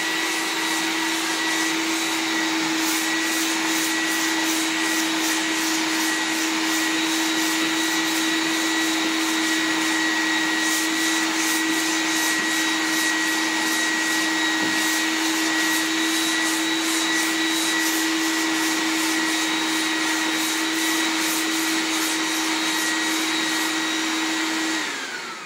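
Shop vacuum running steadily through its hose into a vacuum sanding block, with the rasp of sandpaper being pushed back and forth over a car body panel in a steady rhythm. The vacuum winds down near the end.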